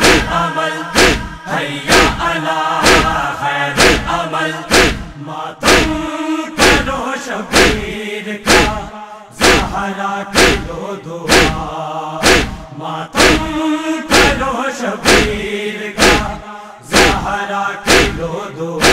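A chorus of men's voices chants the noha's refrain between verses, over a steady matam beat of hands striking chests about once a second.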